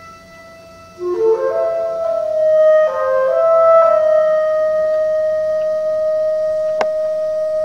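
Contemporary chamber ensemble music: a quiet held high tone, then about a second in a louder cluster of short overlapping notes that settles into one long sustained note. A single sharp click sounds near the end.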